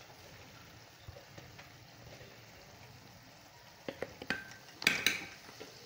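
A metal spoon stirring in a cooking pan of frying onion and ginger-garlic paste, over a faint sizzle; a few sharp clinks of the spoon against the pan start about four seconds in, the loudest two ringing knocks coming near five seconds.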